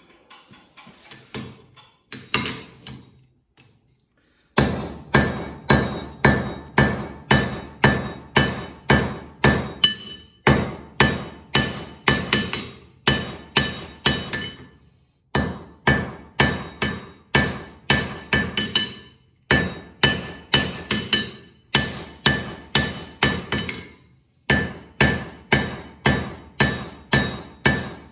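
Hand hammer striking hot steel on an anvil at a little over two blows a second, in runs broken by short pauses, with the anvil ringing after each blow. Softer scattered knocks come before the hammering starts about four seconds in. An old file is being drawn out into the rough shape of a flint striker.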